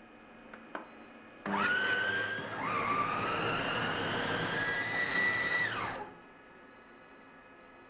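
Chefbot Compact kitchen robot's blade motor starting suddenly at speed 6 to purée cooked apple compote. Its whine dips once, then climbs steadily in pitch for a few seconds before the motor stops. A few short, faint beeps follow near the end.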